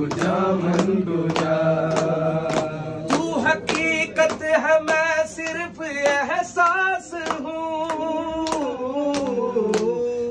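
A man singing a long, wavering devotional-style melody while a group of people clap their hands along in a steady rhythm.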